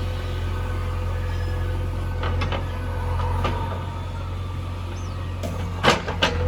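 Heavy machinery engine running steadily with a low rumble, with a few sharp knocks near the end.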